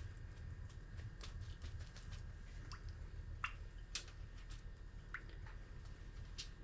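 Melted butter being spread on cut bread: faint, scattered soft clicks and light scrapes over a low steady hum.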